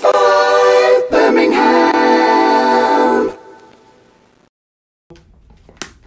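Sung station-ID jingle for a talk-radio show, ending on a long held note that fades out about three seconds in. Then a moment of silence and a sharp click near the end.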